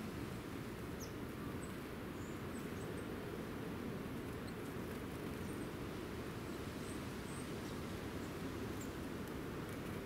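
Steady low outdoor rumble with faint, brief high chirps from small birds scattered through it, one sliding down in pitch about a second in.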